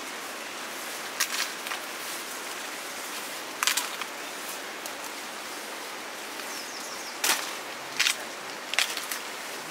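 Sel roti batter deep-frying in hot oil: a steady sizzle with sharp spitting pops at irregular moments, about six of them.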